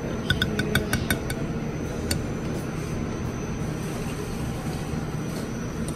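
Metal ladle clinking against a stainless steel bowl of potatoes, about seven quick ringing clinks in the first second and a half and one more a little later, over a steady low hum.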